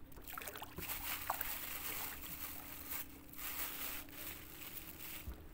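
Water lapping and sloshing, with a faint steady hum that fades out about four seconds in.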